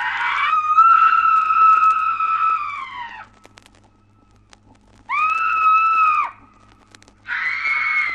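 Three long, high-pitched screams. The first lasts about three seconds and sags down in pitch as it fades; two shorter screams follow about two and seven seconds later. Faint record clicks and a low hum sit underneath.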